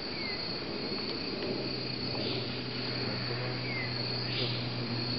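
Steady high-pitched drone of a rainforest insect chorus, with two faint short falling whistles about a second apart from the start and near four seconds in, over a low steady hum.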